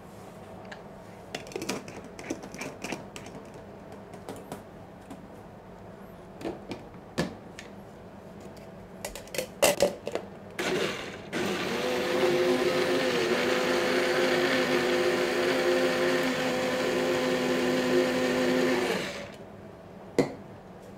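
Single-serve personal blender running for about eight seconds with a steady motor whine, after one short burst, as it blends a vinaigrette until it emulsifies. Before it starts there are light clinks and knocks of the plastic blender cup being handled and fitted onto the base.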